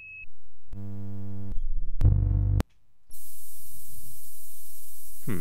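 Evolved patches on the Trilobite software modular synthesizer being auditioned. A brief high beep comes first, then two short buzzing synth tones about a second apart. After that a steady noisy hiss over a low hum sets in, with a quick falling zap near the end.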